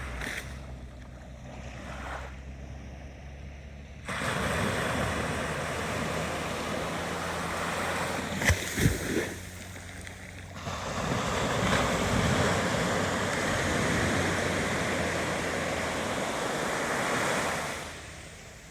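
Ocean waves washing in as two long surges of surf. The first starts about four seconds in and the second follows a brief lull, with two sharp knocks near the middle and a low steady hum underneath.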